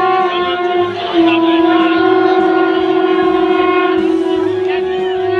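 Conch shells (shankh) blown during the aarti in one long steady note, with a short break about a second in.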